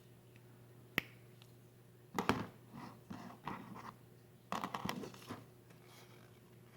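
Hand-handling noises: one sharp click about a second in, then several short bursts of scratching and crackling, like plastic toy parts and packaging being handled and opened.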